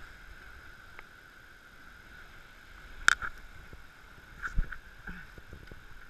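Knocks and rustling of people scrambling down a brushy slope, gripping branches and stepping through dry leaves and twigs, over a steady hiss. A sharp knock about three seconds in is the loudest, followed by a few more thumps and clicks about a second and a half later.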